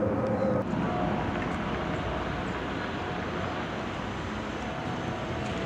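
Jet airliner's engines during climb-out after takeoff: a steady noise with faint whining tones. The sound changes abruptly about half a second in, at an edit.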